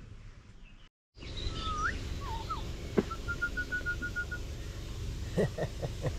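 Birds calling over a steady low rumble: a whistled rising swoop and a couple of curving notes, then a quick run of short, even, same-pitched notes. One sharp knock comes midway.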